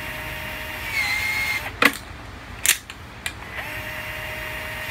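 Milwaukee cordless PVC shear cutting 1/2-inch PVC pipe. Its motor whines steadily with a slight dip in pitch about a second in, then stops. Two sharp cracks follow about a second apart, and the motor whines again near the end.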